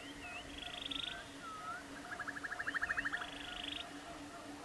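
Background nature soundscape of animal calls: short swooping whistles, each followed by a fast rattling trill, heard twice at different pitches, over a soft chorus pulsing about two to three times a second.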